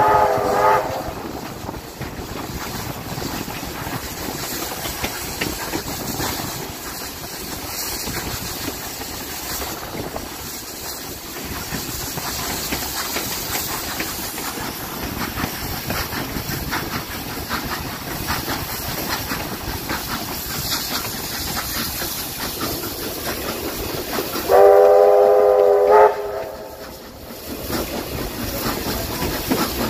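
Steam locomotive running, a steady noise of steam hiss and rail clatter, with its whistle sounding briefly at the start and blown again for about a second and a half near the end.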